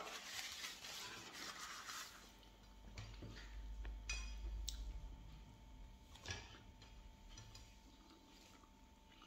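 A paper napkin rustles against the mouth for the first two seconds. Then come faint light clicks of eating and tableware, with one short ringing clink about four seconds in.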